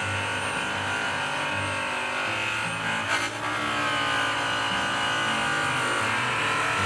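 Handheld electric polisher running steadily, its blue cutting buff loaded with stainless bar rouge pressed against an aluminum truck wheel for heavy cutting. A brief sharp click sounds about three seconds in.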